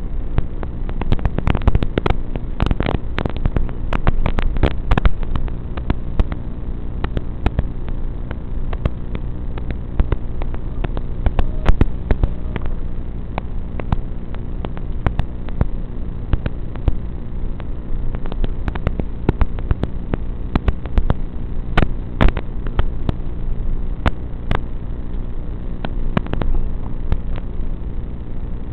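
A steady electronic buzz at fixed pitch, with frequent crackles and clicks scattered through it. The buzz carries on unchanged after the drone is disarmed, so it comes from the analog FPV video link recorded by the goggles' DVR, not from the motors.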